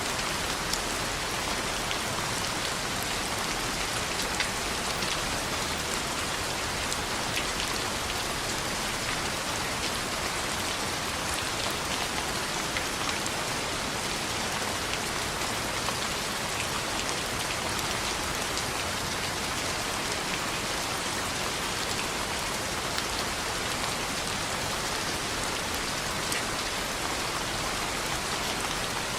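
Steady rain falling on a window, an even hiss with scattered sharp ticks, blended with the crackle of a fireplace.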